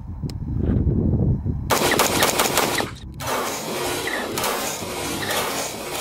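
Bushmaster MOE AR-15 in 5.56 being fired rapidly, semi-automatic shots in quick succession, with a dense string of shots from about two seconds in. A low rumble comes before the first string.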